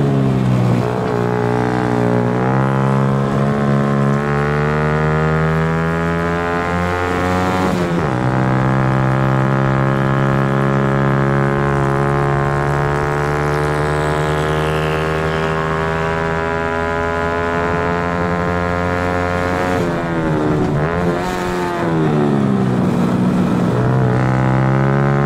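Honda Cub's single-cylinder four-stroke engine racing at high revs, heard onboard. The engine note dips and climbs again near the start, drops sharply about 8 seconds in, then climbs slowly in a long pull until it eases off and dips again about 20 seconds in before rising once more.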